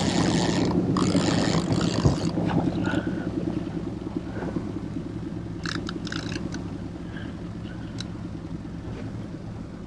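Small four-stroke outboard motor running steadily at trolling speed, a low even drone. A louder rushing hiss sits over it for the first three seconds, and a few faint clicks come later.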